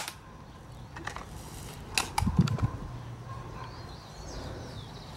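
A few sharp clicks, about a second and two seconds in, the second followed by several dull knocks, like gear being handled; faint high bird chirps near the end.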